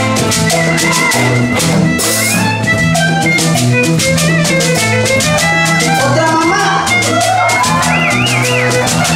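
Live Latin band playing an instrumental passage: violin melody over a strummed small guitar, electric bass and drum kit, with a bead-netted gourd shaker (shekere) adding rattling percussion. The violin plays a quick wavering figure near the end.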